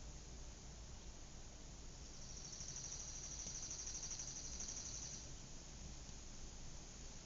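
Outdoor suburban ambience: a faint, steady background hum and hiss, with a high, rapid trill lasting about three seconds in the middle.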